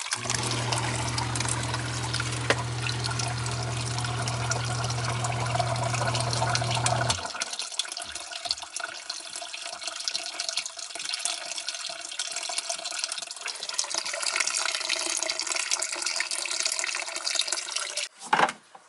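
Water from a drained hot-water heating system pouring out of a hose into a sump pit, splashing and trickling steadily. A sump pump motor hums under it for about seven seconds, then shuts off abruptly, and the pouring water carries on alone.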